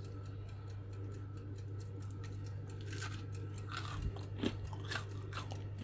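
A person biting into and chewing a crisp-based pizza, with faint crunches about three seconds in, over a steady low hum.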